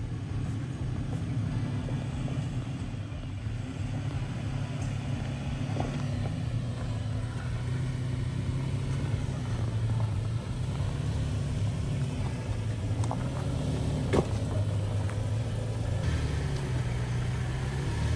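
Off-road 4x4 truck engine running steadily at low revs while crawling the trail, with a few sharp knocks, the clearest about two-thirds of the way in.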